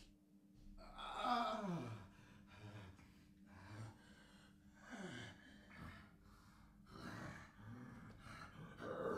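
A man's gasping breaths and groans as he acts out a painful werewolf transformation, with a long moan sliding steeply down in pitch about a second in and another falling groan about five seconds in.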